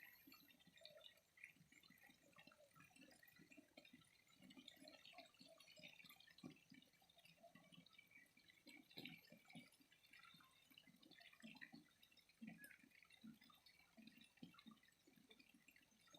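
Faint flowing water trickling and gurgling, with many small irregular drips and bubbles.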